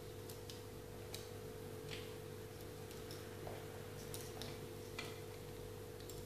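Hairdressing scissors snipping and clicking as hair is combed and cut: faint, sharp clicks at irregular intervals, about two a second at most, over a steady low hum.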